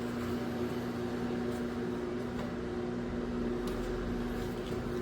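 GE commercial coin-operated washer running through its cycle: a steady motor hum with a constant tone, with a few faint clicks.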